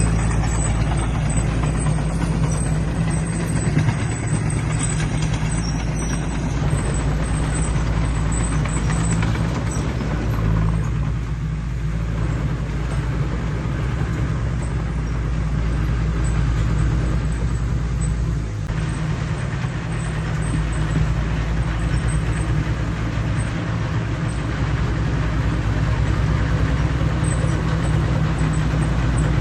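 Heavy diesel earthmoving machinery running steadily under load, a deep continuous engine drone that eases slightly for a moment partway through.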